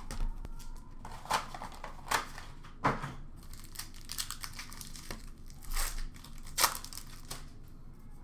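Wrapping on a box of hockey trading cards and its packs crinkling and tearing as it is opened by hand, with several short, sharp rips spread through the crinkling.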